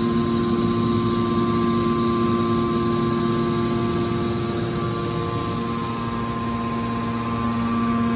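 Hydraulic power pack of a steel scrap press running steadily, a hum made of several steady tones. It eases slightly from about five seconds in and comes back near the end.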